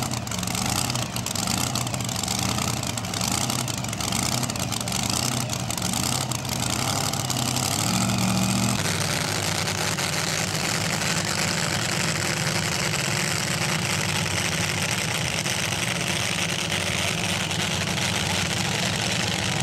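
Pulling truck's engine idling with a steady note while hooked to the sled, then revving up about eight seconds in. After a sudden change, a pulling truck's engine runs hard down the track at a distance, heard as an even wide noise.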